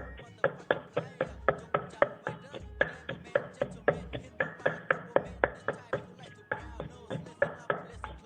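Pestle pounding garlic, ginger, chilies and shrimp paste in a mortar, a steady rhythm of about three knocks a second.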